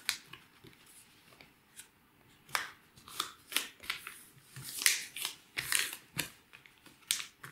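A sheet of origami paper being folded by hand and its creases pressed flat: a series of short papery rustles and swipes, sparse at first and more frequent from about two and a half seconds in, the loudest about five seconds in.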